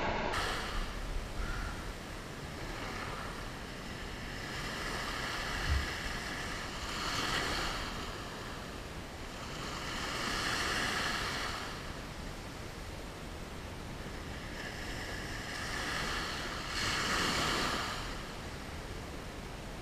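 Small waves breaking and washing up on a sandy beach, swelling in surges a few seconds apart, with wind on the microphone. A brief thump about six seconds in.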